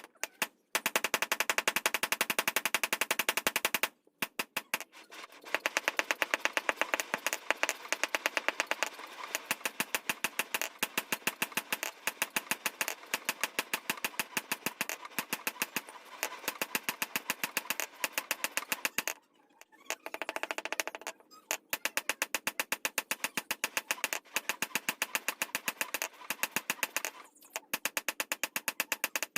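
Rapid, evenly spaced hammer strikes on metal at a blacksmith's forge, several blows a second. The hammering pauses briefly about four seconds in and again around nineteen to twenty-one seconds.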